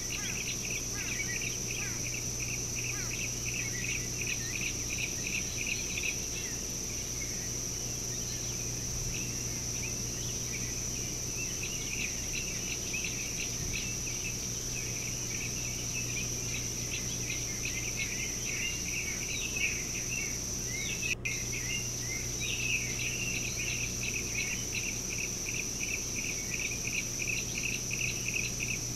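Insects calling: a steady high-pitched drone with a rapid pulsing chirp beneath it, over a low steady hum. The sound drops out for an instant about two-thirds of the way through.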